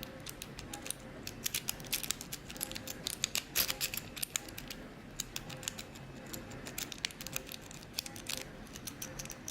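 A City rake being scrubbed through the pin stack of a Hermex CH-50 five-pin padlock: rapid, irregular metallic clicks and scratches of the pick on the pins, thickening into quick flurries a few times.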